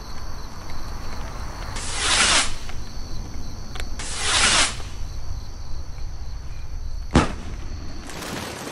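Crickets chirring as a steady high background at night. Two swelling whooshes of noise come about two and four seconds in, then a single sharp crack about seven seconds in, and another whoosh near the end.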